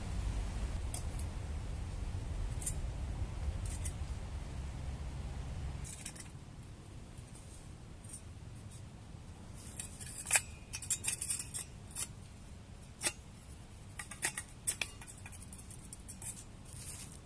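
Metal parts of a nested twig stove clinking and scraping as they are pulled apart and handled, a scatter of sharp clicks with the loudest about ten seconds in. A low rumble fills the first few seconds.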